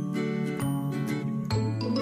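Background music: a light, tinkling melody over a bass line, the notes changing about every half second.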